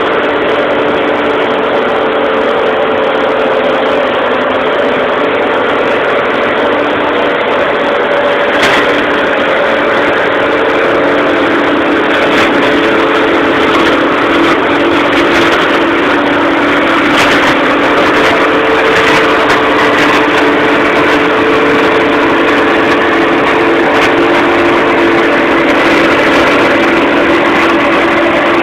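Tractor engine running steadily at working revs, driving a boom-arm flail hedge mower that is cutting a hedge, with a dense whirring noise from the mower head. From about nine seconds in, scattered sharp clicks and cracks join in.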